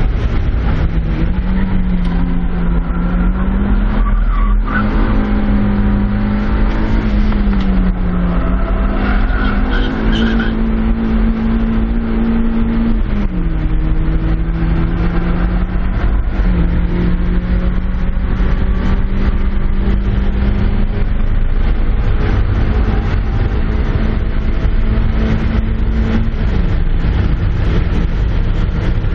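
Cabin sound of a 1997 Mazda Miata driven hard on track: its stock 1.8-litre four-cylinder engine note rises and falls in steps as the car brakes, changes gear and accelerates, over heavy wind and road noise. The tires squeal for a few seconds in the first half as it takes a corner.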